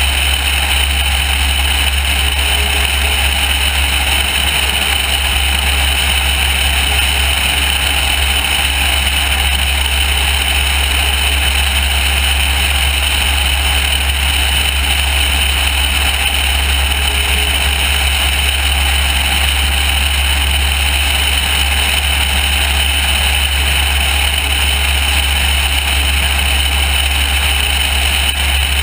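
Single-engine light airplane in steady level flight: a constant low engine drone under loud wind rush on a camera mounted outside the plane, unchanging throughout.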